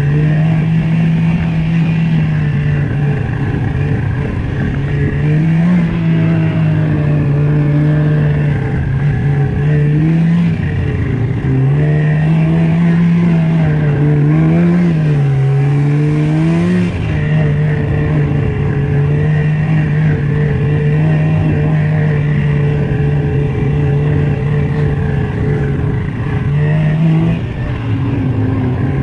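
Snowmobile engine running under way, its note climbing and dropping several times with the throttle through the middle stretch and holding steady before and after, over a steady rush of wind and track noise.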